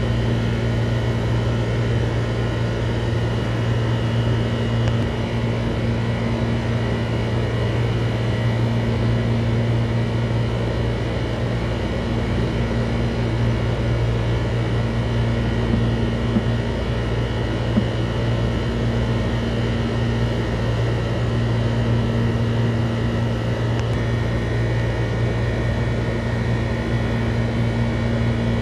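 A steady, low mechanical hum with an even level throughout, like a motor or fan running, with two faint ticks about two-thirds of the way through.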